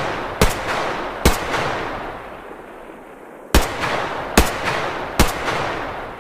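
H&K MP5 submachine gun fired in single shots, each with a long echoing tail: two shots early on, a pause of about two seconds, then three more shots about 0.8 s apart.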